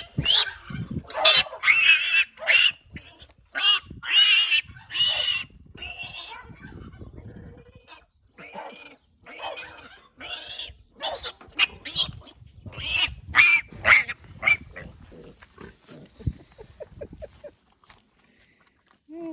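Piglet squealing in loud, shrill, repeated bursts while being held and dosed with electrolytes for scours, the squeals dying down near the end.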